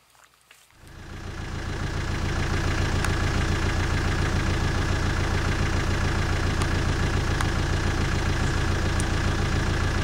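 Safari game-drive vehicle's engine idling steadily, coming in about a second in and holding an even, low running note.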